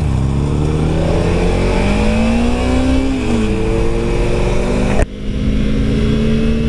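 Motorcycle engines accelerating away from a stop: the pitch climbs for about three seconds, drops at a gear change, then holds steady. The sound changes abruptly about five seconds in.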